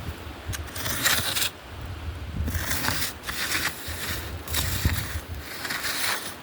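Footsteps crunching on a trail, roughly one scraping step a second, with a low rumble of wind on the microphone.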